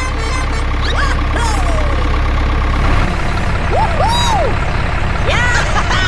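Mini tractor engine running steadily with an even chugging pulse, its note shifting about three seconds in. A few short whistle-like pitch glides sound over it.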